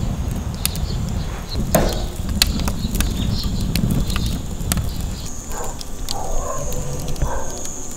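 Firewood burning in a smokeless fire pit: sharp crackles and pops scattered irregularly over a low, steady rumble of flame.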